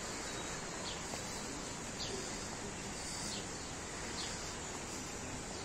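A bird chirping, short high calls repeating about once a second, over a steady background hiss.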